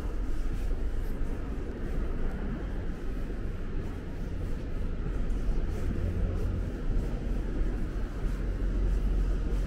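Steady low rumble and hum of an Underground station ticket hall, with no distinct events standing out.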